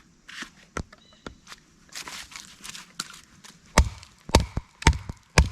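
Fixed-blade Becker BK2 knife chopping into very hard, knotty wood to trim around it: light handling and rustling at first, then about four sharp knocks of the blade biting into the wood, roughly two a second, in the last couple of seconds.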